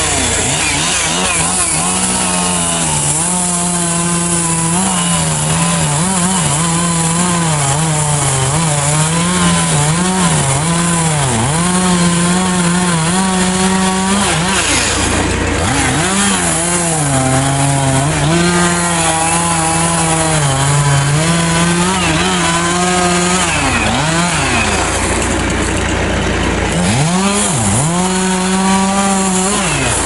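Gas chainsaw running at high revs while cutting into the trunk of a dead pine. Its pitch wavers as the chain loads in the wood, eases off about halfway through and again near the end, then revs back up.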